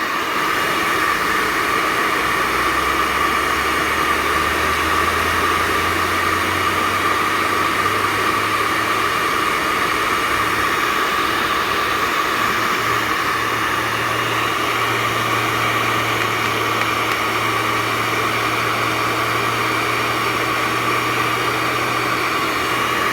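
Hair dryer blowing steadily at close range on a fidget spinner, with a low hum underneath that rises in pitch over the first dozen seconds as the spinner speeds up in the airstream.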